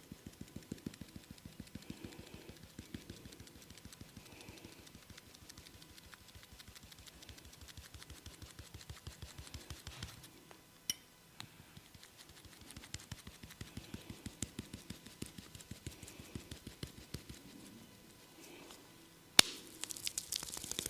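Quick, even tapping of a barber's hands during a head massage, several strokes a second, with a short pause around the middle. Near the end comes a single loud, sharp crack, and after it the tapping turns louder and crisper.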